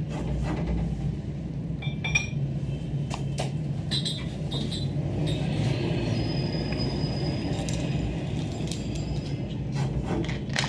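Steady low background hum with scattered light clicks and brief metallic clinks.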